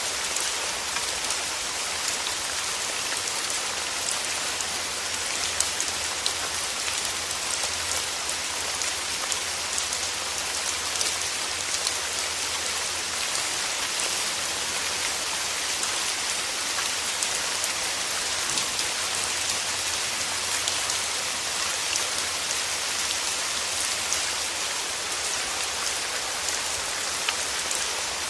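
Steady rain falling, an even hiss dotted with many small drop clicks.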